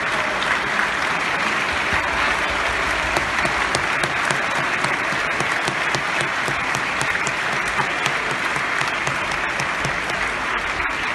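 Large theatre audience applauding, a dense, steady clapping that holds at the same level throughout.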